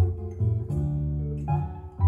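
Recorded music played over B&W 802 Nautilus floor-standing speakers through a Schiit Gungnir Multibit DAC, picked up by a phone in the room. It is an instrumental stretch without singing: plucked guitar notes over deep bass, a new note or chord starting about every three-quarters of a second.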